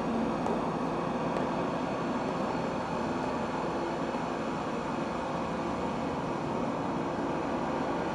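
Steady, dense drone of noise with a few faint low held tones in it, even in level throughout.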